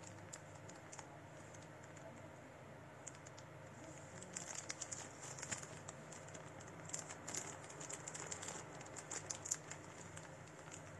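Faint rustling and crinkling of packaging handled by gloved hands, with irregular small clicks coming in clusters from about a third of the way in.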